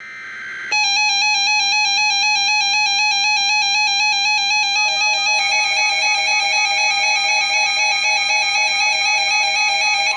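Electronic emergency alert tone for a flash flood warning: a harsh, buzzy tone warbling rapidly between two pitches, about five times a second, starting under a second in. A second, lower pulsing tone joins about halfway.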